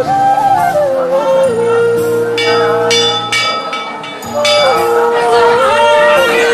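Music: a held melody line that steps and glides in pitch over lower sustained tones, with a few bright ringing strikes around the middle.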